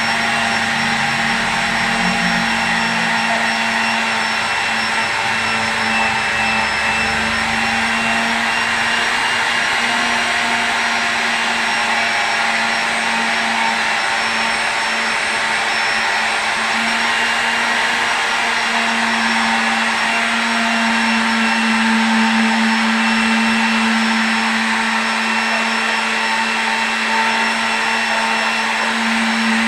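A small electric motor running steadily with a constant whine, like a hand-held power tool used in wood finishing.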